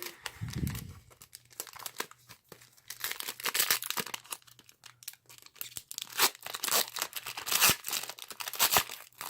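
Foil trading-card pack wrapper being torn open and crinkled by hand, with dense crackling rustles that get louder about three seconds in. There is a low thump just after the start.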